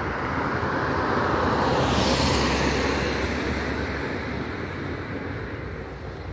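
A car driving past: the noise swells to a peak about two seconds in, then slowly fades away.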